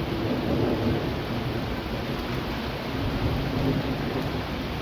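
Rain pouring steadily in a storm, with a low rumble underneath.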